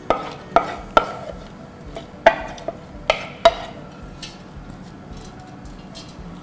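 Wooden spoon knocking and scraping against a ceramic bowl and a stainless steel pot as wet lentils are scraped into the pot: about seven sharp taps with a short ring in the first three and a half seconds, then quieter stirring.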